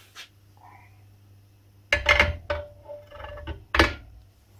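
A motorcycle front wheel on its balancing shaft being set down into a metal wheel-balancing stand: a loud metal clunk about two seconds in that rings on for about a second and a half, then another sharp knock near the end.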